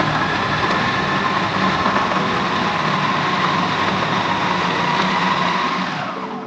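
Panasonic MK-F510 food processor motor running at full speed: a loud whirring rush with a steady high whine. It starts suddenly and winds down near the end.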